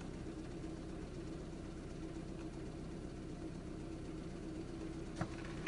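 Car engine and road noise heard inside the cabin while driving: a steady low hum, with one brief click near the end.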